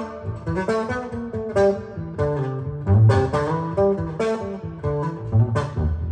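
Recorded instrumental music played back through Snell Type A/III vintage loudspeakers: a plucked-string melody of picked notes and chords over deep bass notes.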